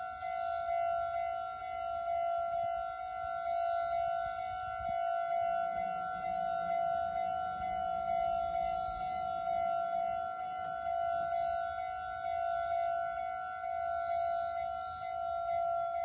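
Japanese railway level-crossing alarm ringing: a single high electronic tone repeated quickly and evenly, the warning that a train is approaching and the crossing barriers are coming down.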